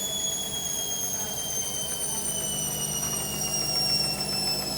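Hoover 8 kg washing machine running with a very unbalanced load: a high motor whine falls slowly and steadily in pitch as the drum slows, over a low steady hum.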